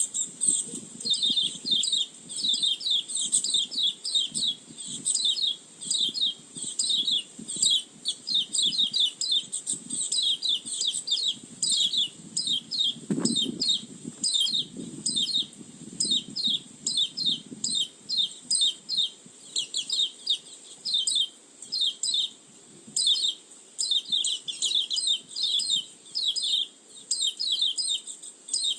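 White-eye (pleci) song used as a lure call: a rapid, unbroken stream of high, quick chirps and twitters.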